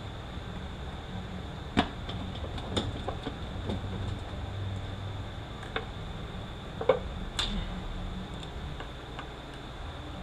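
Scattered light metallic clicks and knocks as internal parts of a Toyota U760E automatic transaxle, such as the clutch return spring and piston, are handled and lifted out, over a steady background hum.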